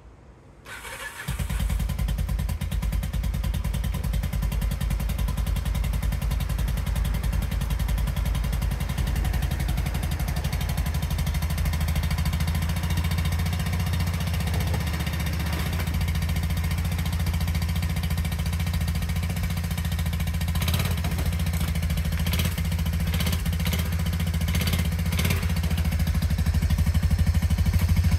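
Honda Fourtrax ATV's single-cylinder four-stroke engine starting up about a second in, then running steadily, with a few sharp clicks near the end.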